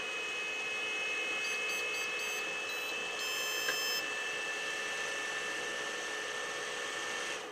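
Small cooling fans on a 3D printer's print head spinning steadily after power-up, a steady whine over airy hiss that drops off near the end. A few faint, short high beeps come about one and a half to four seconds in.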